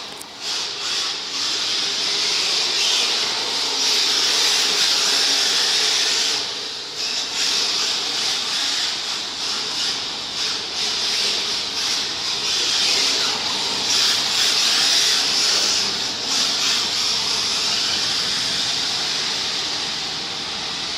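Radio-controlled model Mk2 Escort car running around on tarmac: a loud, steady hiss that dips briefly a few times.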